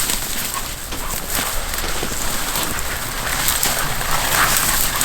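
Crunching and rustling of footsteps through snow and brush, with many small crackles over a steady hiss.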